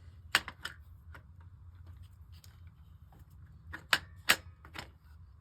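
Sharp metallic clicks from an AR-15 fitted with an Anvil forced reset trigger being worked by hand in a dry function check, its bolt going forward and trigger parts resetting. The clicks are scattered, with the loudest a pair about four seconds in.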